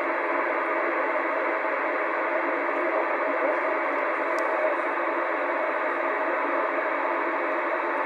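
Radio Shack DX-394 shortwave receiver playing steady hiss and static through its speaker, with no clear station audio. The hiss sits in the narrow band of the receiver's audio passband.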